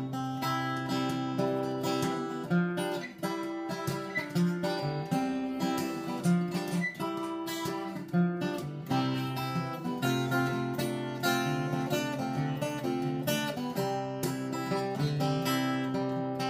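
Acoustic guitar played alone, picked notes coming quickly over a steady low bass note, an instrumental passage with no singing.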